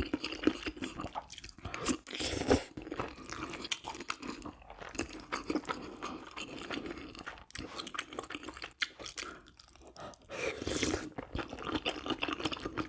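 A person chewing and crunching food with their mouth, as mukbang eating sounds: irregular wet clicks and crunches, with a louder bite or slurp about two and a half seconds in and another near the end.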